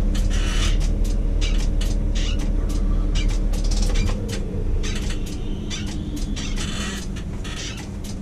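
Tower crane machinery running: a steady mechanical hum with many short clicks and creaks. The deepest part of the hum drops away about four seconds in.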